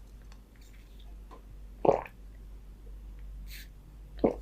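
Close-miked mouth sounds of eating fried chicken skin: two short, dull mouth sounds, about two seconds in and near the end, with faint wet clicks of chewing between.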